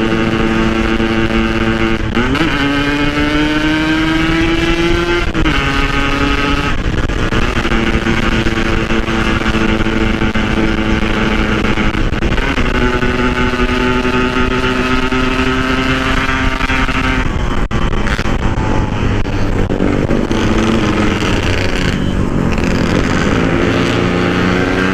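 Yamaha RX-King's single-cylinder two-stroke engine running under load while riding, heard from on the bike, its pitch holding or slowly climbing with a brief dip and recovery every few seconds, as in gear changes.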